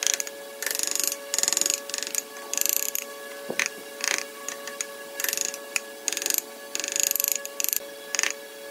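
Hand chisel cutting into wood, driven by taps from a wooden block used as a mallet: about fifteen short rasping cuts at an uneven pace.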